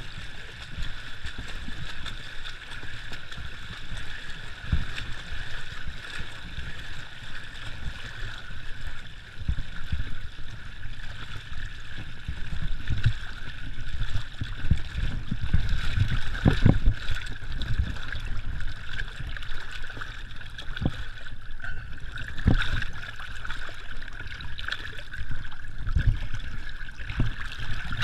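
Surly Pugsley fat bike's wide tyres churning through shallow lake water, a steady splashing and sloshing with irregular low thumps, busier in the second half.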